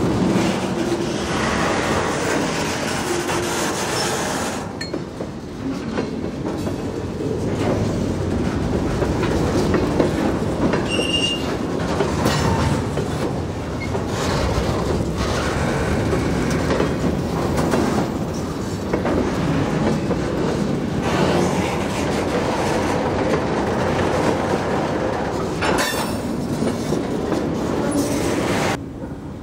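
Freight train of covered hopper cars rolling steadily past, steel wheels clattering on the rails, with a brief thin wheel squeal about a third of the way through. The sound drops away abruptly just before the end.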